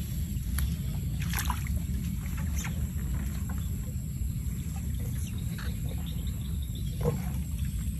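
Faint rustling and wet, muddy handling sounds, a few soft scrapes here and there, as an eel trap tube is worked loose and pulled out of a muddy bank, over a steady low rumble.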